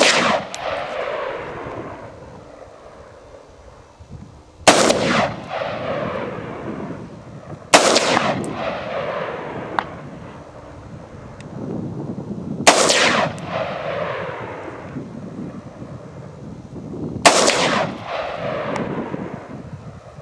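Bushmaster XM15 AR-15 rifle firing single shots: one right at the start, then four more spaced about three to five seconds apart. Each shot echoes and dies away over a second or two.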